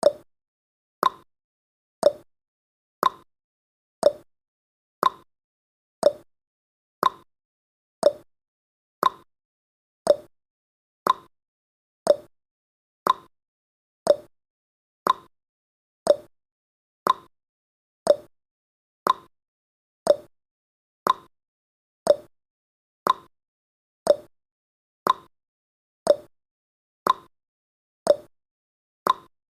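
Clock-tick sound effect of a countdown timer, one short tick each second, steady and even.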